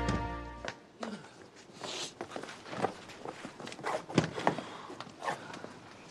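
Irregular footsteps on a hard surface, with a few louder steps around four to five seconds in. The end of the show's theme music fades out in the first second.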